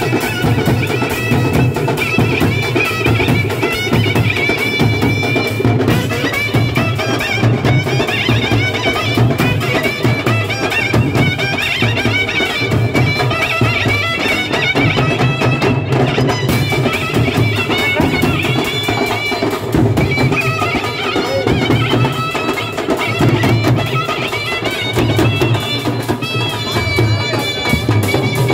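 Street band playing loud folk festival music: a clarinet carries a wavering melody over dense, steady drumming from bass drums, barrel drums, snare drums and a cymbal.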